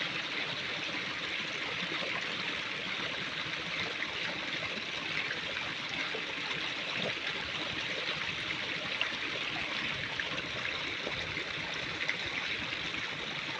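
Steady rushing noise of running water, like a stream, with no clear breaks or single events.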